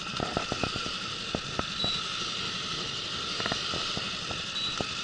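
Steady hum of an outboard motor with wind noise, while the angler cranks a baitcasting reel to bring in the trolling line. Scattered light clicks and knocks run through it.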